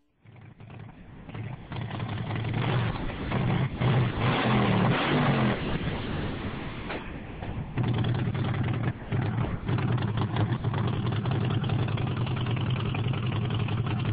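Harley-Davidson motorcycle's V-twin engine running, revved up a couple of times about four to five seconds in, then settling back to a steady, lumpy idle.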